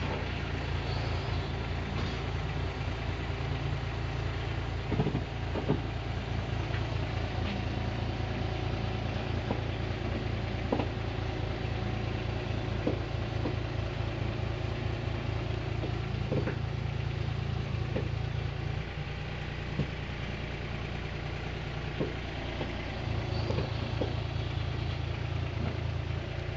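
An engine idling steadily, with occasional short metallic clicks and knocks. Its low rumble eases for a few seconds about two-thirds of the way through, then comes back.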